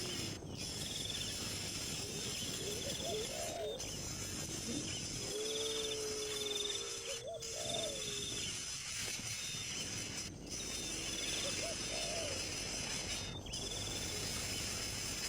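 Steady outdoor insect chorus with short high trills repeating every second or two, and a few low, wavering calls from an animal, most of them near the middle.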